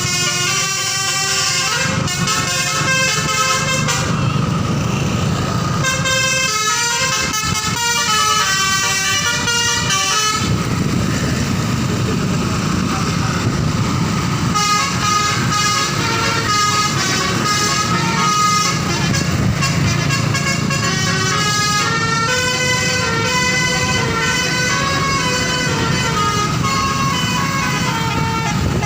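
A bus's telolet basuri multi-tone horn plays a melody of short stepped notes, note after note, over the steady rumble of a running bus engine. The notes thin out for a few seconds about a third of the way in.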